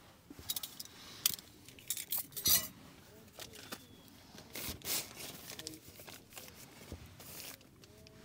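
Plastic food packs being handled and opened by hand: scattered clicks, taps and crinkles from plastic trays and wrappers, busiest in the first three seconds, with more around five and seven seconds.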